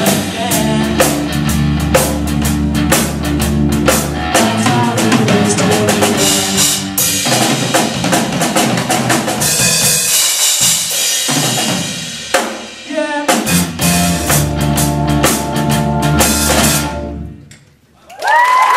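Live rock band playing the end of a song: drum kit, electric bass, electric guitar and keyboard. The music thins out briefly about ten seconds in, comes back full, and stops abruptly a little over a second before the end. Whistles and applause start right at the end.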